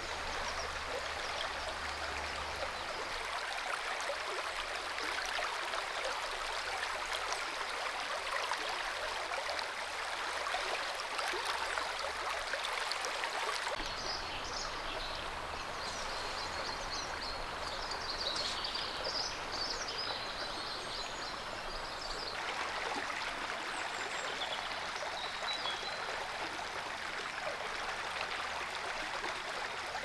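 River water running steadily over shallows, a continuous rushing and trickling. Small birds chirp and sing over the water through the middle part, and the water sound changes abruptly twice.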